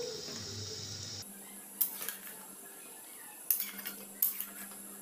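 Wooden spatula stirring mutton and liver pieces in a metal kadhai, with a few short knocks and scrapes against the pan: about two seconds in, and twice more near the end.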